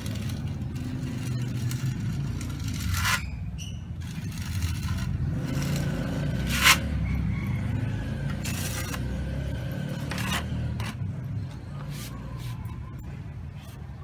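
Steel notched trowel scraping and combing mortar across a concrete slab and against the end of a lightweight AAC block: a run of short scrapes and clicks, the sharpest about two-thirds of the way in. A steady low rumble runs underneath.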